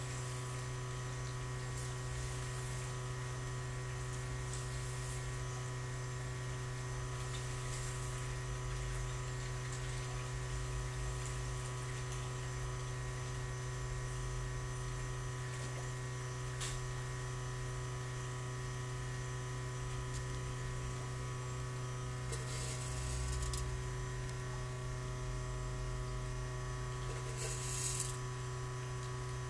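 Steady low electrical hum with several faint steady higher tones over it, and two short hissy swishes late on.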